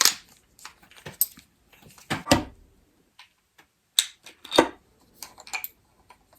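Hard plastic parts of a Yakattack CellBlok box knocking and clicking as they are handled and its cap is taken off. Scattered sharp knocks, the loudest a couple of seconds in and again just past the middle.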